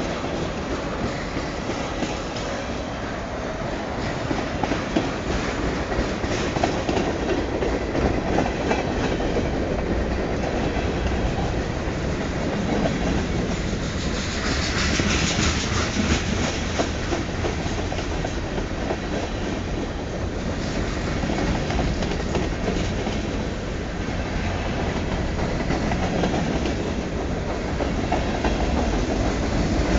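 Freight train's tank cars and covered hoppers rolling past close by, steel wheels clattering over the rail joints with a steady rumble. About halfway through there is a brief, brighter rush of hissing wheel noise.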